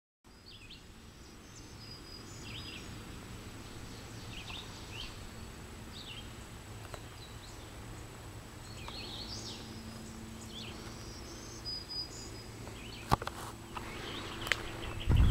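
Woodland birds singing short, scattered phrases over a steady low rumble and a faint thin high tone. Near the end come a few sharp knocks, then the thuds of footsteps on the trail.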